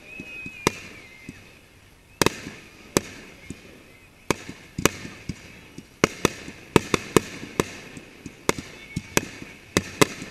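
Fireworks display: aerial shells bursting in a string of sharp bangs at irregular intervals, coming thicker in the second half.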